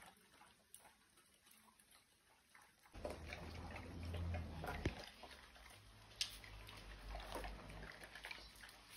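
Dogs eating soaked kibble from steel bowls: faint wet lapping and chewing with a few sharp clinks, which start about three seconds in over a low rumble. Nearly silent before that.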